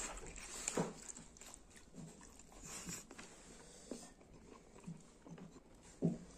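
A person eating by hand: intermittent wet chewing and lip-smacking, with fingers working through curry on a plate.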